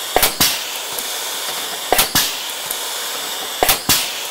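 Hanson Rivet AutoFast AF60 auto-feed blind riveting tool setting rivets one after another, each rivet giving a pair of sharp snaps about a quarter second apart, three times at a steady pace of about one every 1.7 seconds, over a steady hiss.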